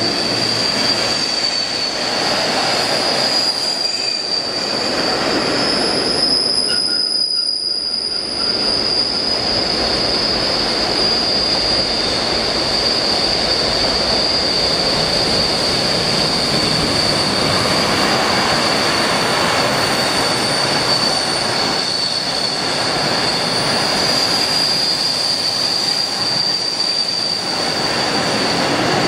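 Freight train box wagons and a towed, unpowered ScotRail Class 380 electric unit rolling past close by, a steady rumble of wheels on rail with a constant high-pitched wheel squeal.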